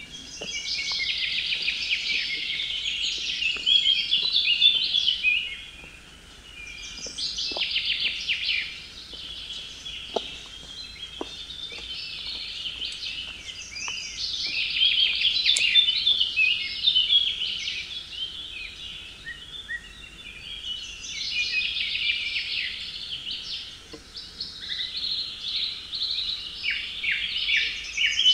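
Songbirds singing in the forest: high, chirpy song phrases a few seconds long, repeated over and over with short pauses between them.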